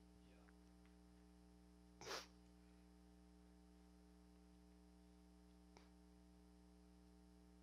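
Near silence: a faint steady hum from the room's sound system, broken about two seconds in by one short breath or sniff at the microphone, and a faint tick near six seconds.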